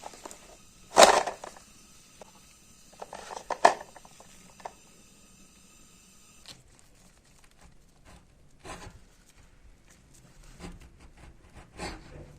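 Handling noise of the restoration work: a sharp knock about a second in, a short clatter around three to four seconds, then a few fainter knocks and scrapes.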